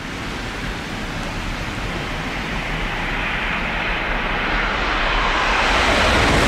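Shinkansen bullet train approaching at speed: a steady rushing noise that grows gradually louder.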